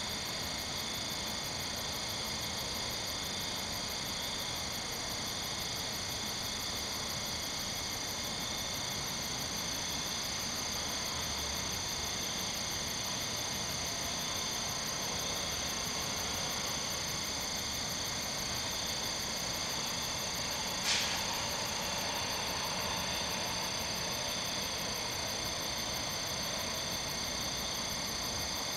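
Night chorus of crickets and katydids: steady shrill trilling at several pitches at once, holding an even level. One brief sharp click about two-thirds of the way through.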